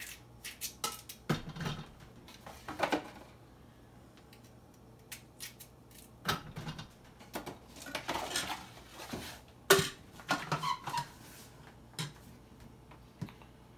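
Whole cucumbers being dropped and pushed into a Thermomix's stainless-steel mixing bowl: irregular knocks, thuds and clatter, the loudest knock about ten seconds in. Near the end the lid is fitted with a click.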